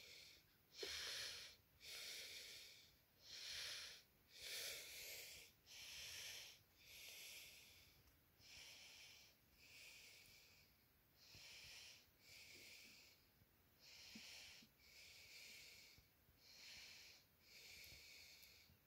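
Faint breathing close to the microphone: a steady run of airy inhales and exhales, about one a second.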